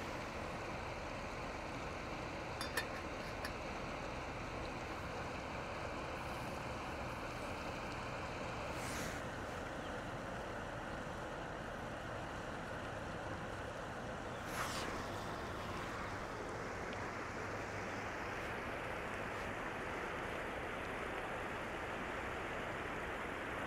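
River water running over rocks: a steady rushing, with a couple of brief faint clicks about three seconds in and again about halfway through.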